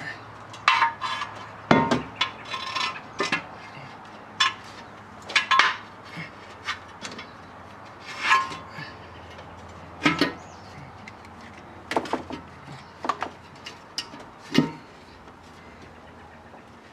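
Irregular clinks, clicks and knocks of metal parts and hand tools being handled during an intake manifold swap, over a faint steady low hum.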